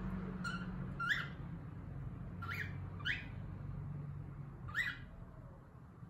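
Cockatiel giving five short, rising chirps, spaced unevenly over about five seconds, over a steady low background hum.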